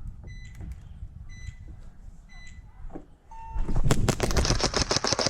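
Electronic game-start timer beeping three times about a second apart, then a longer, lower start beep. Right after it, rapid bursts of airsoft gunfire break out near the end as the round begins.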